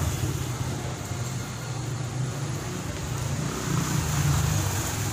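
A vehicle's engine idling with a low, steady hum, swelling briefly near the start and again about four seconds in, while a motorbike passes in the street.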